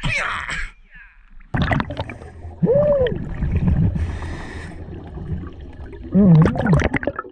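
Water splashing as a diver goes under, then the underwater sound of breathing through a scuba regulator, heard from a mask-mounted camera: a hiss of an inhale about four seconds in and loud gurgling exhale bubbles near the end.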